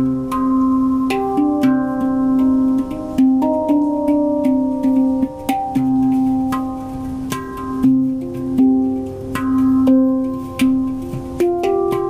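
Handpan played by hand in an improvised solo: sharply struck steel notes ring on and overlap, a low note sounding again and again beneath a shifting run of higher notes.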